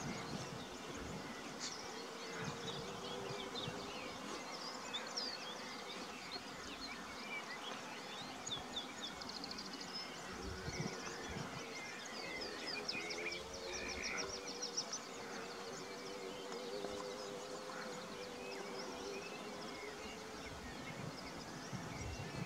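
Insects buzzing steadily around flowering plants, with small birds chirping and giving a quick trill about halfway through.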